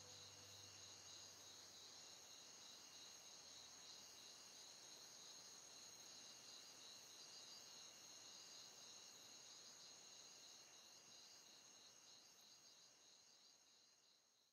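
Faint nature ambience of a steady, high-pitched insect chorus with a light pulsing chirr, fading out over the last few seconds.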